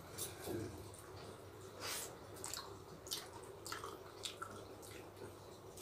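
Faint wet chewing and lip-smacking of people eating rice and chicken curry by hand, in short irregular clicks, over a low steady hum.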